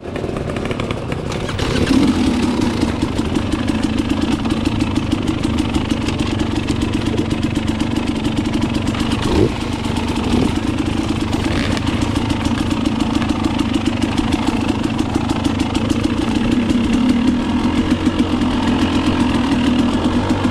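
Two-stroke motorcycle engine running steadily, getting louder about two seconds in, with one short blip of the throttle about halfway through.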